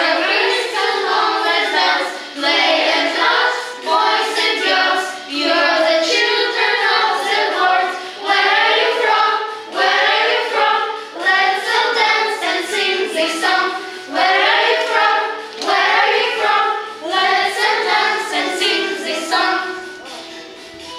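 A group of children singing together in short phrases with brief breaks between them, trailing off near the end.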